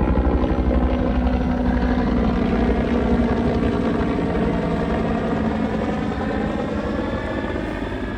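An engine running steadily at a constant pitch, its level easing off slowly.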